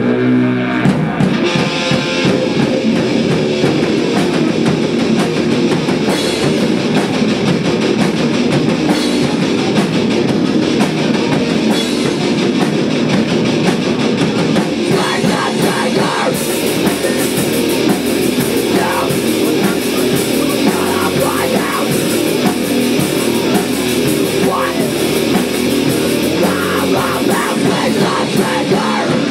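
A live punk/doom rock band playing loud, heavy rock on guitars and a drum kit.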